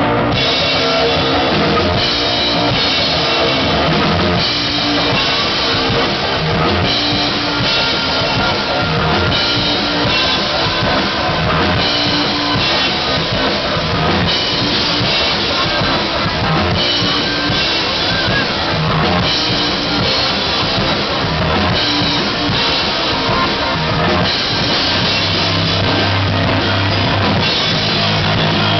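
Live rock band playing in a room: a DW drum kit with cymbals, an electric bass guitar and an electric guitar, played together at a steady loud level.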